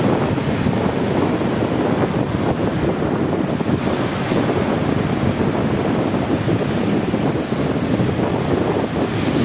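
Sea waves washing with wind buffeting the microphone, a steady loud rush.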